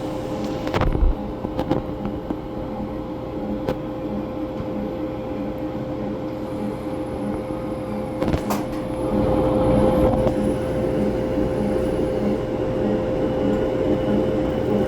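BreadBot automatic bread-making vending machine running: a steady motor hum with a regular pulsing, with a few sharp clicks and knocks from its mechanism, getting louder about nine seconds in.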